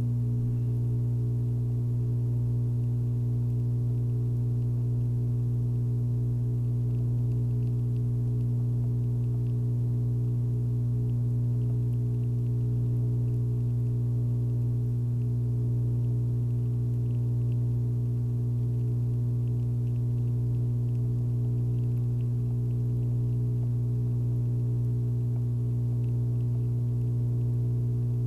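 Steady low electrical hum with overtones, unchanging in pitch and loudness.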